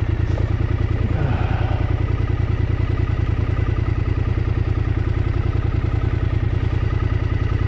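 Triumph Scrambler 900's parallel-twin engine running steadily at low revs, an even rapid beat, as the motorcycle rolls slowly.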